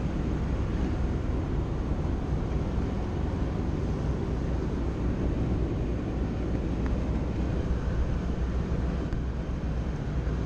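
Steady low rumble of wind buffeting the microphone on an open fishing boat, with a faint steady low hum underneath.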